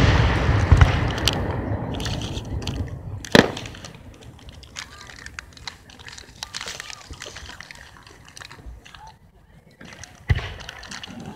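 Fireworks: the rumbling echo of a big aerial shell dying away, a sharp bang about three and a half seconds in, scattered faint crackles, and another bang near the end.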